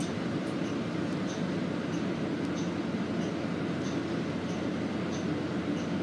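Steady running hum inside a Nova Bus LFS hybrid city bus, heard from a passenger seat, with a faint tick repeating about one and a half times a second.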